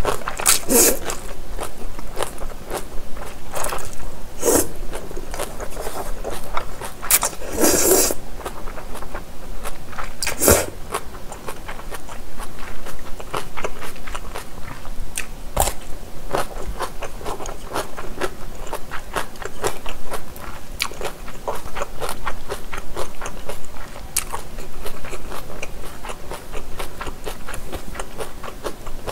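Close-miked eating sounds: slurping and chewing japchae glass noodles with wet mouth smacks, and crunchy bites of pickled cucumber. A few louder slurps come in the first ten seconds, then steady chewing.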